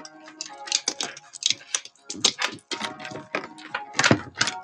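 A string of Halloween lights being handled and untangled, its plastic bulbs and wire clicking and rattling together in quick irregular clicks.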